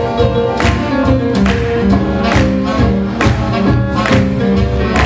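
A live swing band playing a tune: a melody line over a steady beat of about two beats a second.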